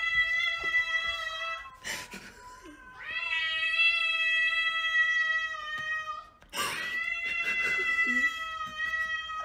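Cats caterwauling: three long, drawn-out yowls, each held for two to three seconds, with short breaks about two and about six and a half seconds in. This is the yowling of a territorial standoff between two cats.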